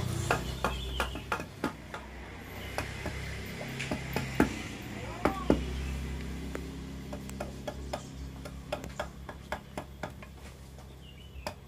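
Wood carving chisel struck by hand with a small wooden mallet, cutting into a block of waru wood for a barongan mask: a run of sharp, irregular taps, several a second at times.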